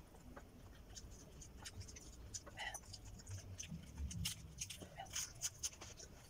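Close-up chewing of raw leafy vegetables: a string of small crisp crunches and wet mouth clicks, thicker in the second half.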